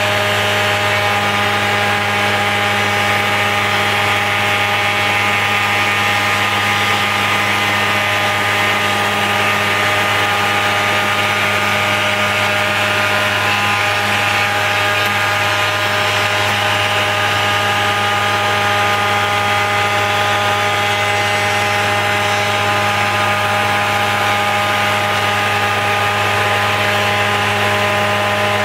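Felder Format 4 spindle moulder running at 6000 rpm with a 220 mm steel Profil 45 raised-panel cutterhead: a steady machine hum with several unchanging tones over a band of hiss.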